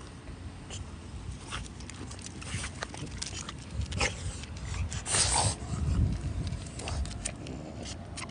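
French bulldog breathing noisily as it walks on a leash and sniffs along the pavement, with scattered small clicks and a short, loud rush of breath about five seconds in.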